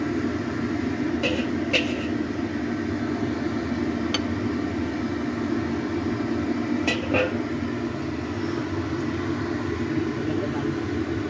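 A steady machine hum, broken by a few light clicks.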